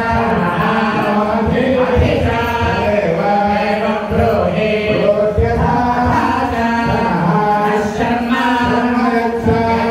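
A group of male priests chanting Hindu mantras together in a continuous, sung recitation, voices held on long notes.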